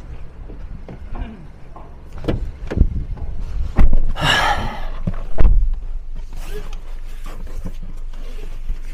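Car sounds heard from inside: a low rumble under a string of clicks and knocks, a rasping scrape about four seconds in, and a heavy thump about a second later.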